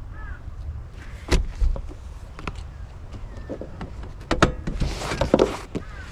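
Handling noises of a small van's door and fittings: several separate knocks and clunks, then a denser clatter with a rustling scrape near the end.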